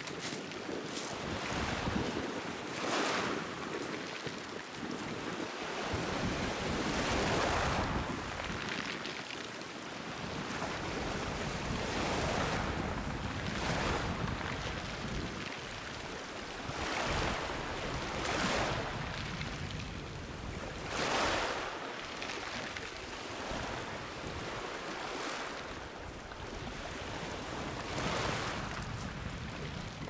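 Small sea waves washing onto a pebble beach and around rocks, a swell of surf every three to four seconds. Wind buffets the microphone.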